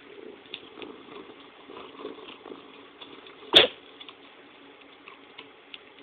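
A single sharp tap or knock about three and a half seconds in, over faint crackling with scattered small ticks.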